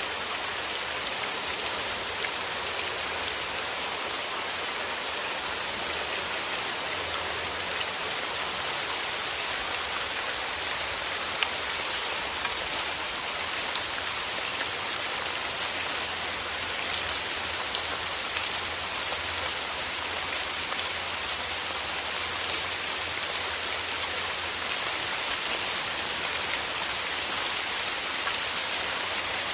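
Steady rain falling: a dense, even hiss with many small drop taps scattered through it.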